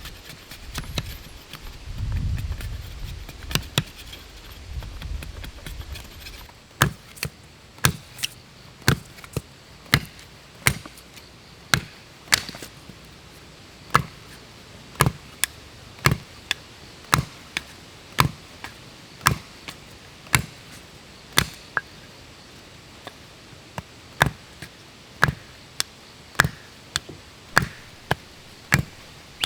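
Wood being chopped with an edged tool: a steady run of sharp strikes, about two a second, starting about seven seconds in. A low rumble comes first.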